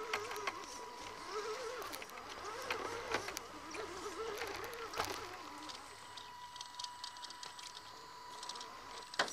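Radio-controlled scale rock crawler working over rock and dirt: scattered clicks and crunches with a steady high whine, and voices talking in the background during the first half.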